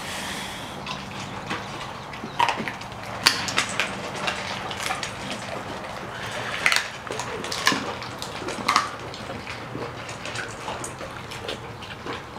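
Several dogs eating from their feeding bowls: irregular clinks and knocks of the bowls with wet eating sounds, over a steady low hum.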